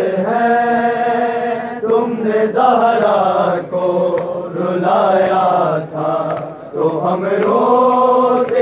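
Male voices chanting a noha, a Shia mourning lament, in long drawn-out notes with short breaks between phrases.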